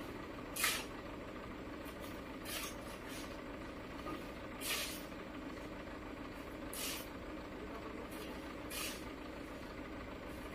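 Dump truck's diesel engine running steadily, with a short hiss about every two seconds.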